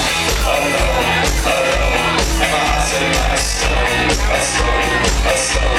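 Live rock band playing through a club PA, heard from within the audience: drum kit with a steady kick drum beat, electric bass and guitars, and a male singer's voice.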